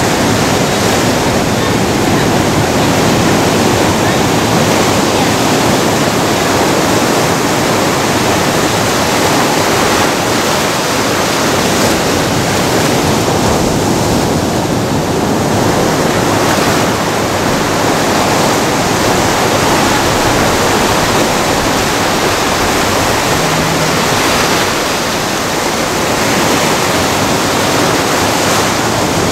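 Ocean surf: waves breaking and washing over the rocks and sand in a loud, steady rush.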